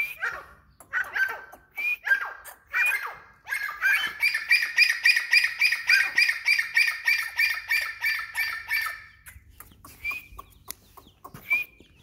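White grey francolin (teetar) calling. A few separate notes come first, then about four seconds in a fast, even run of repeated call notes, three to four a second, lasting some five seconds. Two single notes follow near the end.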